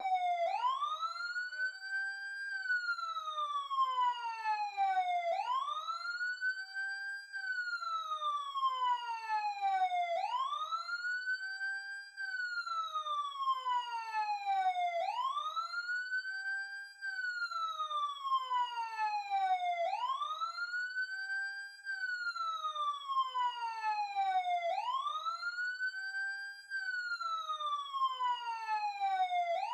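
Emergency siren wailing: the pitch rises over about two seconds, then falls steadily over about three, repeating about every five seconds.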